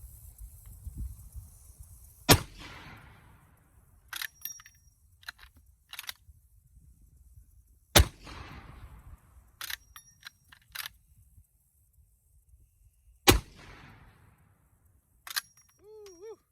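Three 12-gauge black-powder shotgun blasts from an original Winchester Model 1887 lever-action, roughly five seconds apart, each with a fading echo. Between the shots come short metallic clacks of the lever being worked to eject the spent brass shell and chamber the next.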